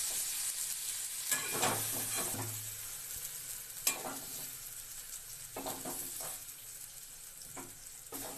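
Metal spatula scraping and knocking several times against a kadhai as fried potatoes are scooped out, over a hiss of oil sizzling that fades away.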